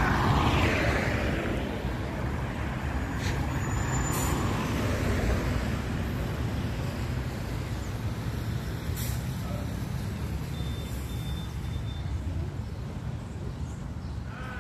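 Street traffic: a motor vehicle goes past close by near the start, then a steady low rumble of traffic.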